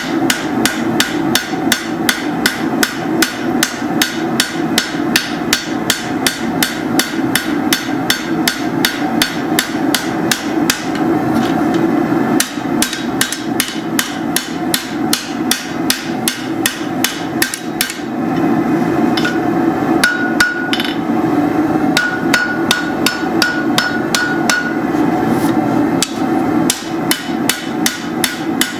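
Hand hammer striking a hot steel machete blade on an anvil in quick, even blows, about three a second, shaping the spine and bevel. A steady hum runs underneath.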